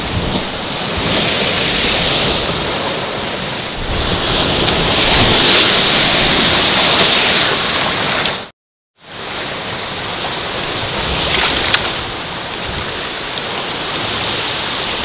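Atlantic swell surging and breaking white against the foot of a rock cliff, a loud rush of surf mixed with wind buffeting the microphone, swelling louder twice in the first half. The sound cuts out for about half a second near the middle, then the sea rush carries on a little quieter and steadier.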